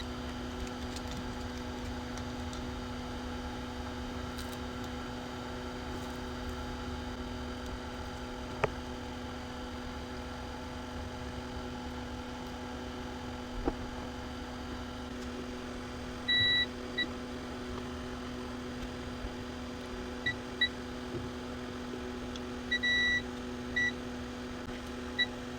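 Steady electrical hum with several short, high electronic beeps in the second half, some single and some in quick pairs.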